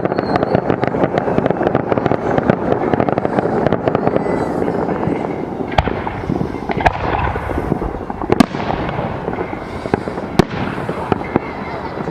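Aerial fireworks display: a dense crackling of many small reports, then several separate sharp bangs of shells bursting in the second half, with hissing and fizzing between them.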